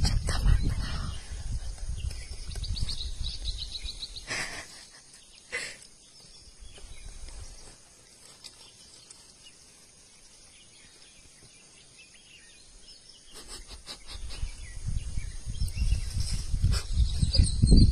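Steady high-pitched insect drone with a few faint chirps and clicks. A low rumble at the start fades by about four seconds in and builds again near the end.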